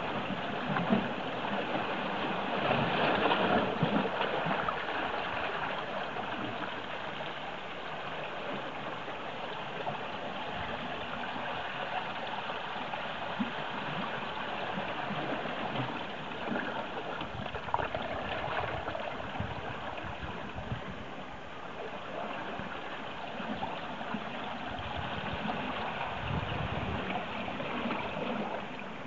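Seawater lapping and gurgling among granite shore rocks and a tide pool: a steady wash of water, a little louder for a few seconds near the start.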